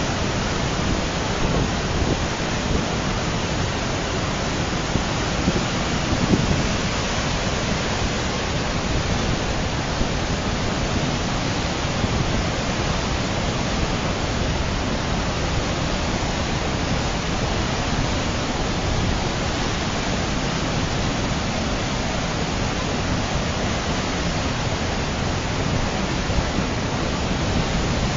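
Muddy flash-flood torrent rushing past in a steady, unbroken noise.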